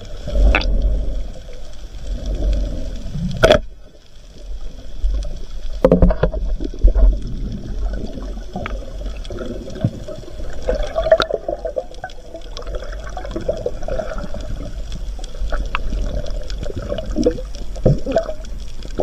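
Water noise heard through an underwater camera: a steady low rumble of water moving around the housing, with scattered clicks and knocks, the sharpest about three and a half and six seconds in.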